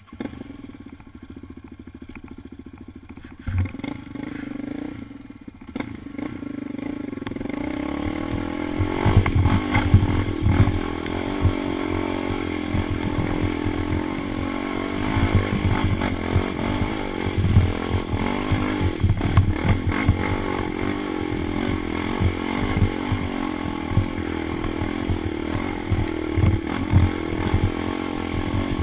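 Yamaha Raptor 700 ATV's single-cylinder four-stroke engine running quietly at first, then pulling harder from a few seconds in, the revs rising and falling with the throttle as it rides a rough dirt trail. Knocks and rattles come from the machine over the bumps.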